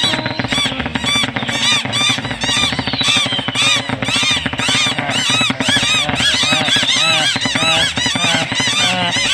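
A flock of cartoon birds chattering and squawking in a dense stream of quick squeaky chirps, each rising and falling, several a second, over a lower babble of bird voices.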